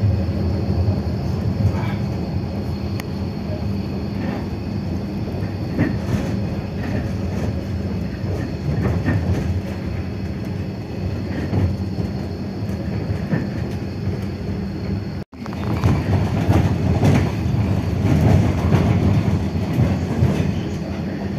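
Electric tram running, heard from inside the car: a steady low hum with rumble and clatter of the wheels on the rails. The sound cuts out for an instant about two-thirds of the way through, then comes back louder and rougher.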